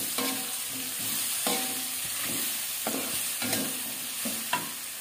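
Stir-frying in a wok: food sizzling steadily in hot oil while a spatula scrapes and knocks against the wok in regular strokes, one every half to three-quarters of a second.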